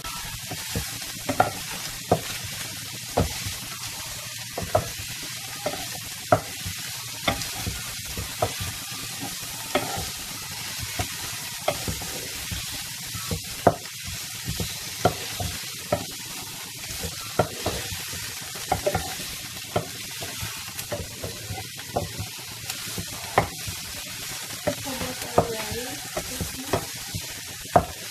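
Diced vegetables sizzling steadily in a nonstick frying pan over a gas flame, while a wooden spatula stirs them, knocking and scraping against the pan in irregular short clicks.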